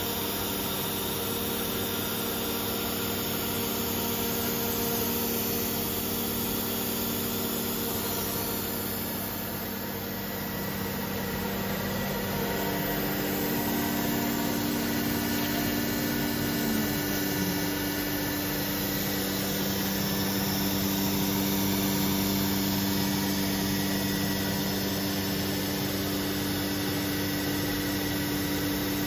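CNC router at work engraving MDF: a steady machine drone from the HSD electro spindle and the Becker VTLF 250 dry rotary-vane vacuum pump holding the sheet down, with a hiss of cutting. The mix of tones shifts about halfway through, and one of them slides down and drops out.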